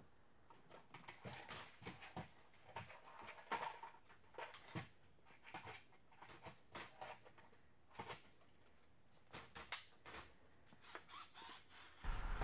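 Faint, irregular clicks, taps and light clatter in a quiet workshop. Near the end it cuts to a louder steady noise with a low hum.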